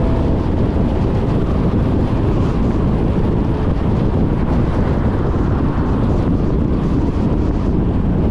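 Steady rush of wind and road noise from a car driving, heard from a camera mounted on the front of the car, with wind buffeting the microphone.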